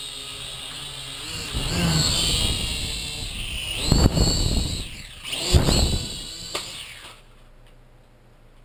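Syma X5C toy quadcopter's four small motors and propellers whining, getting louder and wavering in pitch as it flies, with two loud bursts of low noise in the middle. The whine cuts off suddenly about seven seconds in as the motors stop.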